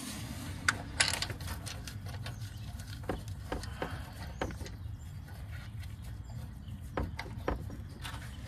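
Irregular clicks and light knocks of hand tools at work on the engine, over a steady low hum.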